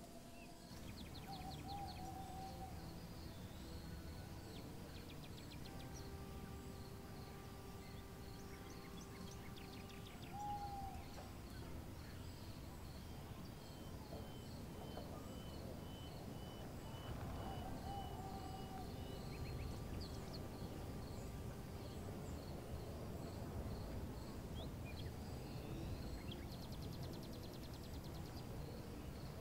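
Wild birds chirping and calling: scattered short high chirps and a few brief whistled notes over a steady low rumble of background noise.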